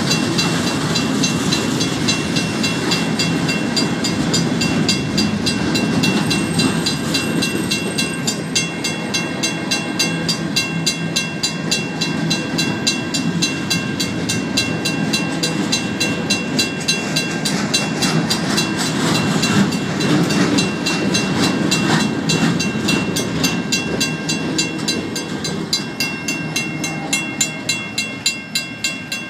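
Empty freight gondolas and rock hoppers rolling through a grade crossing, their wheels rumbling on the rails, while a WCH mechanical crossing bell rings steadily at about three strokes a second. The rumble fades as the last car passes near the end, leaving the bell.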